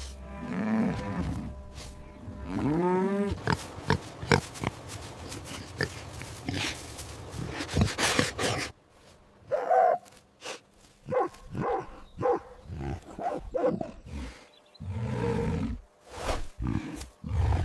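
A series of recorded animal calls: long pitched calls that rise and fall near the start and about three seconds in, then a run of short, clipped calls in the second half.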